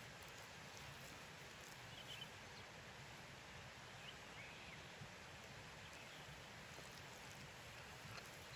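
Near silence: faint steady outdoor ambience, with a few faint high chirps about two and four seconds in.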